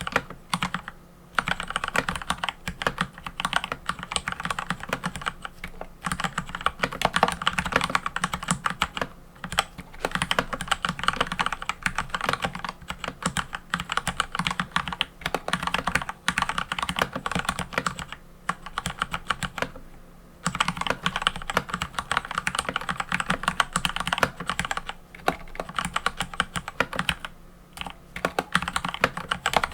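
Mechanical keyboard being typed on quickly, a dense run of key clacks with a few short pauses.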